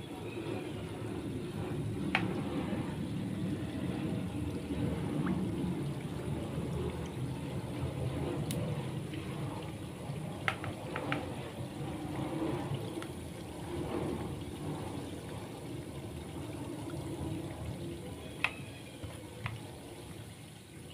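Fritter batter frying in hot oil in a non-stick wok: a steady bubbling sizzle with a few sharp ticks, easing slightly near the end.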